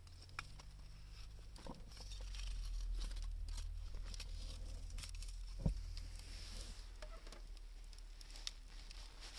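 Wood fire of scrap lumber and found branches crackling, with scattered sharp pops and one louder pop about halfway through, over a steady low rumble.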